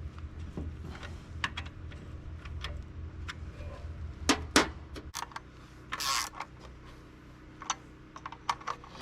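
Small hard objects being handled: scattered light clicks and taps, two sharper clicks about halfway, and a short rasping rustle about six seconds in. A low hum stops about five seconds in.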